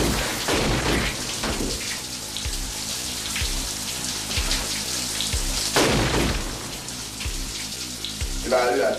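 Shower spray hissing in a tiled stall, over background music with a regular low beat. The sound swells louder right at the start and again about six seconds in.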